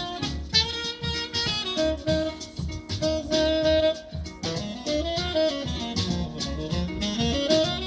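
Live jazz: a tenor saxophone plays the melody, long held notes and then a phrase that climbs and falls in the second half, over a plucked double bass and harp.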